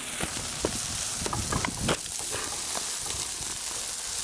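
Seasoned smash-burger patties sizzling on a hot Blackstone steel propane griddle, a steady frying hiss, with several sharp pops and clicks in the first two seconds.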